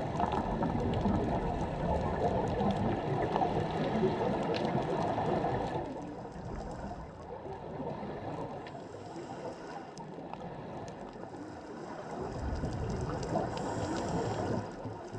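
Underwater ambience picked up by a GoPro in its housing on the seabed: a muffled rushing and gurgling of water with faint scattered clicks. It is loudest for the first six seconds, drops off, then swells again near the end.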